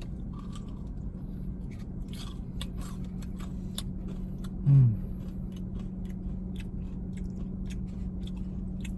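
Close-up crunchy chewing of a fried chicken sandwich with a Cheetos coating: many short, sharp crunches. A steady low hum runs underneath, and there is a brief voiced sound about halfway through.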